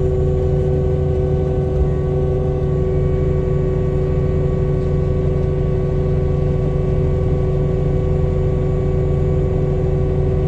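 Cat 299D3 skid steer's diesel engine and mulcher hydraulics running steadily under load, heard from the cab: a constant low drone with a steady whine over it.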